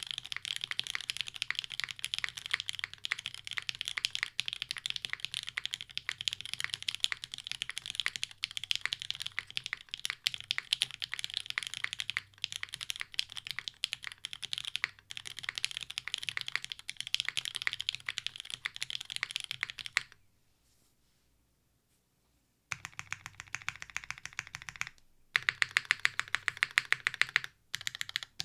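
Custom Kohaku mechanical keyboard with an FR4 plate, lubed JWK Lavender linear switches and GMK keycaps, typed on steadily in rapid keystrokes. About twenty seconds in the typing stops for two seconds, then resumes, with a run of louder, evenly spaced keystrokes near the end.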